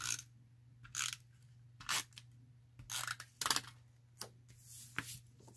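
Card stock being handled and glued: a string of short paper scrapes and rustles, about one a second.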